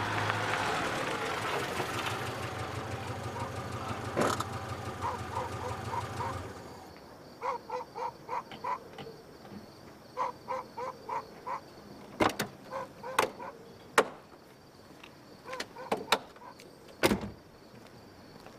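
A car engine runs as the car pulls up, then cuts off about six and a half seconds in. A short pitched chirp then repeats in quick runs, about four a second, and near the end come sharp clicks and knocks of the car door being opened and handled.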